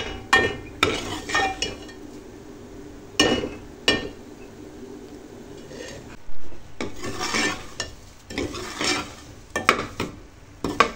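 A metal ladle scraping and knocking against a metal cooking pot as semolina is stirred and roasted in ghee for halwa, in irregular strokes with a few sharp clinks.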